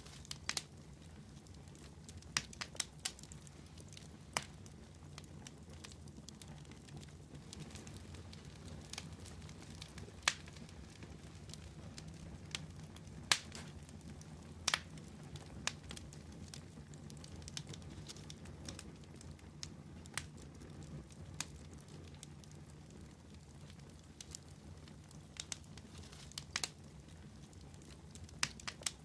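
Wood campfire burning, crackling with irregular sharp pops over a low steady rumble of the flames.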